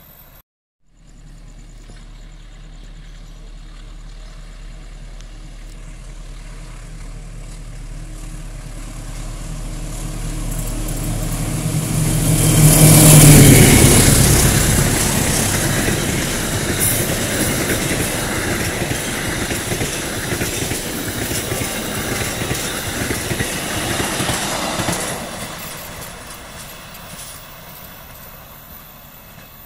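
Express passenger train approaching and passing at speed. A low locomotive drone builds to its loudest as the locomotive goes by about thirteen seconds in. Then comes a dozen seconds of rushing noise and wheel clatter as the coaches pass, fading as the train draws away.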